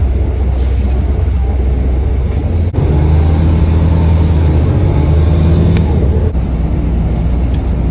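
Steady low rumble of a road vehicle, a little louder from about three seconds in until near the end.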